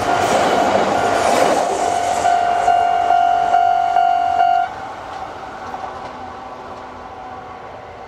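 A Japanese level crossing's electronic warning bell rings over the rush and wheel clatter of a passing electric train. The bell stops suddenly about four and a half seconds in as the crossing clears, and the train fades away into the distance.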